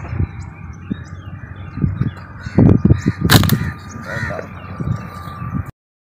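A crow cawing a few times, the loudest call a little past halfway, over low rumbling wind buffeting on the microphone; the sound cuts off abruptly near the end.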